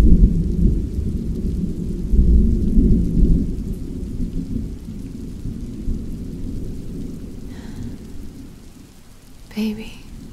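Rolling thunder rumbling low over steady rain, loudest in the first few seconds and slowly fading away. A soft voice comes in near the end.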